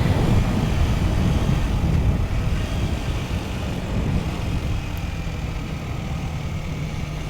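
Kawasaki Z125's 125cc single-cylinder engine running under way, heard from the bike. The level eases off gradually over the first few seconds and then holds steady.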